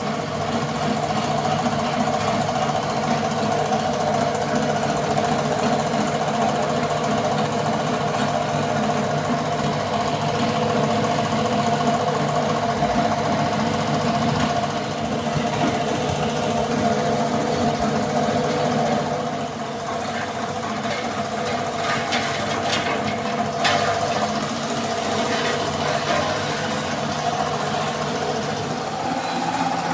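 A machine motor running steadily, with the hiss of a compressed-air paint spray gun over it.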